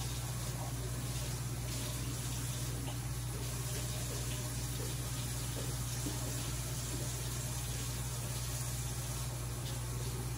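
Kitchen faucet running steadily into a sink as food is washed under it, over a steady low hum.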